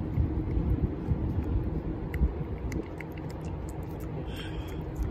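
A cat licking a paste treat from a squeeze tube: small wet clicks of its tongue, irregular and quick, over a steady low rumble.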